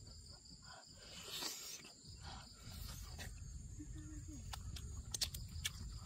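A person eating cooked fish close to the microphone: wet chewing and lip smacking with sharp mouth clicks scattered throughout, over a steady high insect drone.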